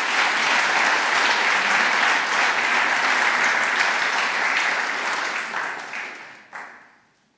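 Audience applauding steadily, then dying away about six seconds in.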